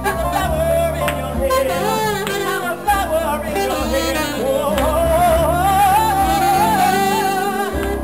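Live jazz-cabaret music: a male voice singing, accompanied by saxophone and piano, with a long wavering held note in the second half.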